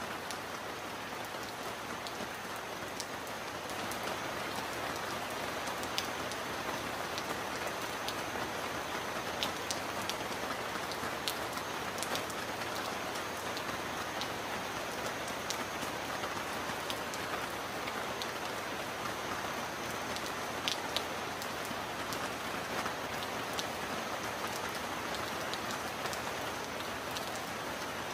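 Heavy rain drumming steadily on a metal roof, dense and even, with sharp single drop strikes standing out here and there. It grows a little louder about four seconds in.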